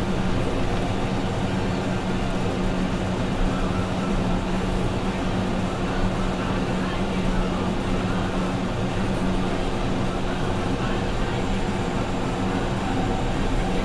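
Caterpillar D8T bulldozer's C15 diesel engine running steadily at an even pitch as the dozer pushes coal.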